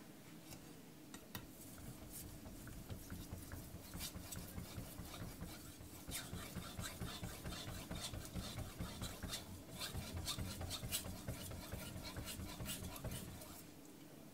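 Aogami carbon steel knife blade stroked back and forth on a soaked Kitayama 8000 finishing whetstone, a wet scraping with each pass. The strokes grow louder about six seconds in and stop shortly before the end.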